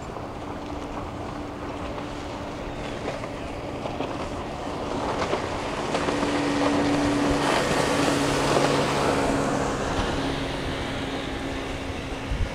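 Boat engine hum over wind and rushing water. The hum and the water noise swell louder from about halfway through, then ease off near the end.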